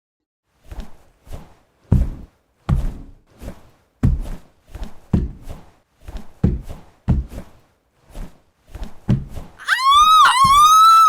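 A long run of heavy, irregular thuds, about two a second, like something big knocking and bumping around a room. Near the end a loud, high, wavering cry starts.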